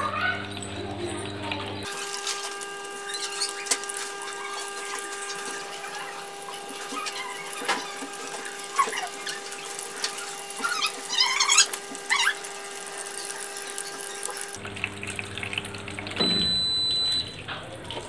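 Water running into the drum of a Whirlpool top-load washing machine as it fills, over a steady hum from the machine. A short high beep sounds near the end.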